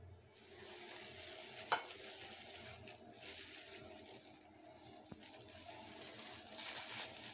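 Clear plastic gloves crinkling and rustling as hands pick up a biscuit, a faint uneven crackle with one sharp click a little under two seconds in.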